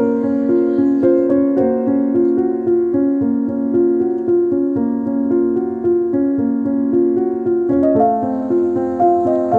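Background piano music: a gentle melody over repeated notes, with the chord changing about eight seconds in.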